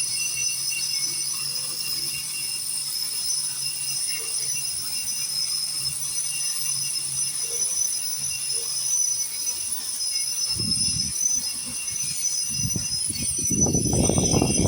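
Power grinder running with a steady high whine. From about ten seconds in a coarse rattling grind comes in and grows louder toward the end as the wheel works against the painted concrete foundation.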